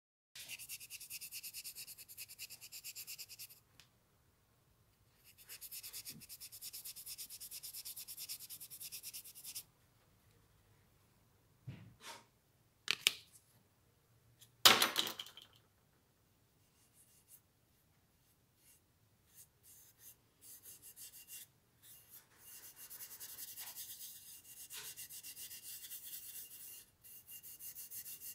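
Steel wool rubbed briskly back and forth on a small metal spirit-level fitting, a fast, even, hissy scrubbing in three spells. In the middle, a few sharp knocks and handling clatter come in place of the rubbing, the loudest about halfway through.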